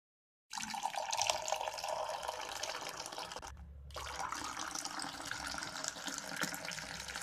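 Milk poured in a thin stream into a ceramic cup, splashing and frothing as the cup fills. It starts about half a second in, with a brief break about three and a half seconds in before the pouring resumes.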